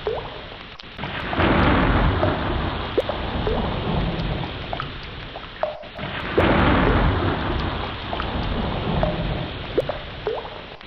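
Heavy rain pouring, with thunder rumbling low underneath. The storm swells loudly about a second in and again around six seconds in, and close drips tick here and there.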